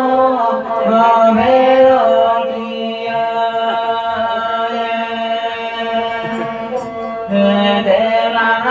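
Group of voices chanting a song into microphones, accompanied by a bowed fiddle. About two and a half seconds in the voices thin out to a steady held tone, and full singing comes back a little after seven seconds.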